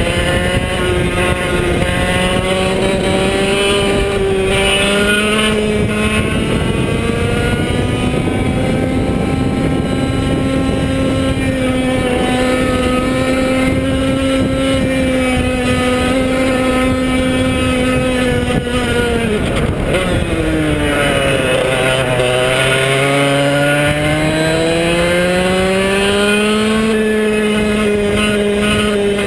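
Onboard sound of a 100cc Arisco two-stroke kart engine running hard at high revs. About two-thirds through the revs drop sharply as the kart slows for a corner, then climb steadily again as it accelerates out.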